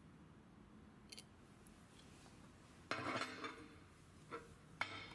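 Faint handling noise with small metallic clicks and a brief rattling clatter about three seconds in, from the steel weld gauge and the camera being moved.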